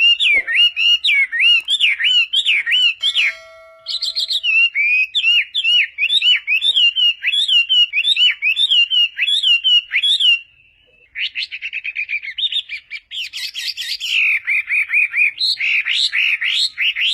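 Chinese hwamei singing loudly: fast runs of repeated slurred whistled notes, the phrase changing every few seconds, with a short break about three seconds in and another about eleven seconds in.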